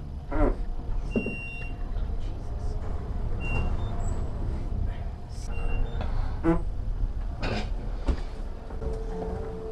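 Low, steady rumble of a lift car in motion. A few short voice-like sounds and faint short high beeps come through now and then.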